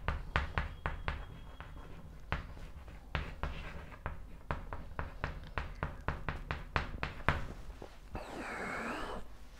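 Chalk tapping and scraping on a blackboard during handwriting: a quick, irregular run of sharp ticks. Near the end there is a brief rustle.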